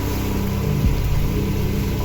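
Soft music of long, held low notes over a steady hiss of rain, with a soft thump about a second in.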